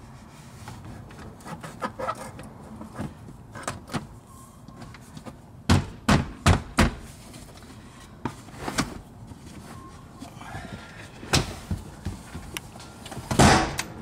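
Plastic floor trim panel of a minivan's third-row seat area being clipped back into place: scattered light knocks and clicks, then a quick run of four sharp snaps about six seconds in. A louder clunk near the end as the folded seat is moved.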